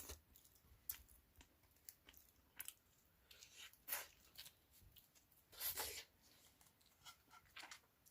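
Hands breaking open and peeling roasted sweet potatoes, the dry, over-baked skin giving faint soft tearing and crackling sounds several times over.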